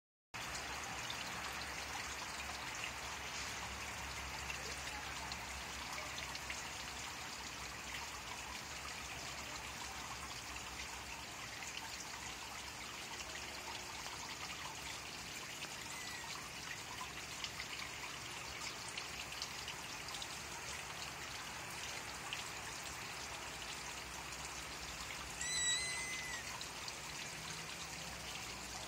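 A chocolate Persian kitten gives one short, high mew near the end, rising then falling, over a steady background hiss.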